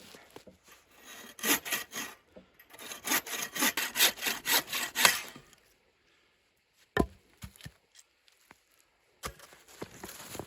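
Hand saw cutting wood in quick back-and-forth strokes, in two runs of about four strokes a second, followed by a few separate knocks.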